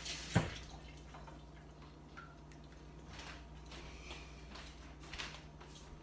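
A running kitchen tap is shut off right at the start with one sharp knock, followed by faint drips and light scattered handling sounds.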